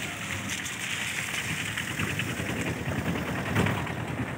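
Water rushing through a pond outlet and spraying against a bamboo-framed fine-mesh fishing net: a steady rushing splash with dense rapid pattering, and a louder splash about three and a half seconds in.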